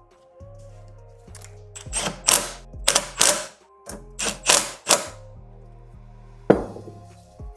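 A hand ratchet working in short strokes, about seven quick rasping pulls in pairs, tightening the nut on a turbo's V-band clamp, then a single sharp metallic click. Background music plays underneath.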